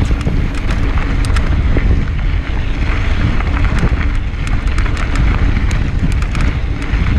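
Mountain bike being ridden over a rocky desert trail: wind rumbles steadily on the microphone, with frequent short clicks and rattles from the bike on the rough ground.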